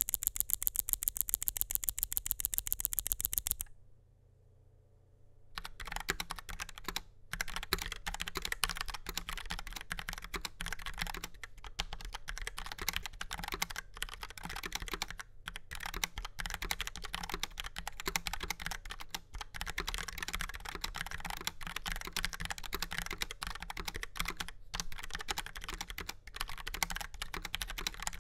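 Logitech POP Keys mechanical keyboard with TTC Brown tactile switches and rounded ABS keycaps being typed on steadily, keystrokes coming fast and uneven with brief pauses. It opens with a rapid, perfectly even run of sharp high clicks for about three and a half seconds, then a short quiet gap before the typing starts.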